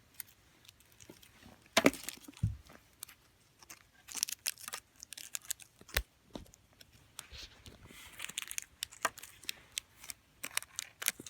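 A LEGO vending machine being refilled by hand: scattered clicks and knocks of LEGO bricks, with wrapped Kit Kat bars crinkling as they are handled and loaded. The sharpest knocks come about two seconds in and again about six seconds in.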